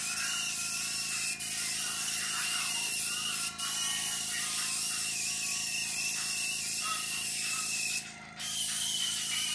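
Small handheld corded air tool running with a steady hiss and a high whine. It cuts out briefly about a second and a half in, again around three and a half seconds, and for a moment near the end.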